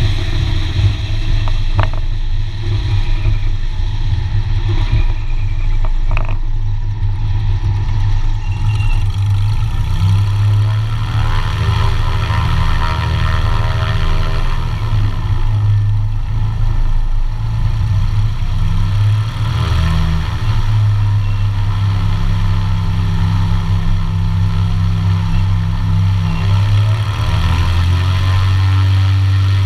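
Light aircraft's piston engines and propellers running at low taxi power, engine speed rising and falling several times as the plane taxis and turns.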